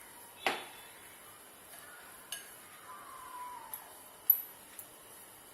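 Utensils clinking against a bowl while dough is mixed: a sharp ringing clink about half a second in, then a few lighter clinks.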